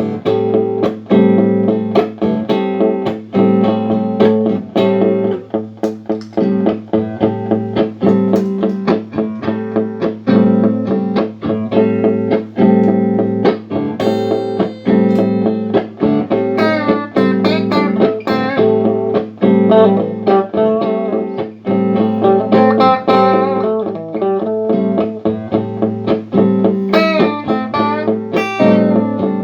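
Guitar played through a Boss RC-1 loop pedal: a plucked guitar pattern repeats as a loop, with more high guitar notes coming in over it from about halfway. The loop playing back shows the pedal's looping working again after repair.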